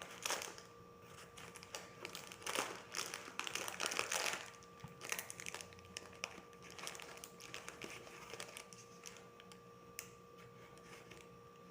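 Crinkling and rustling of craft materials being handled, loudest and busiest in the first four seconds or so, then lighter scattered rustles and small clicks.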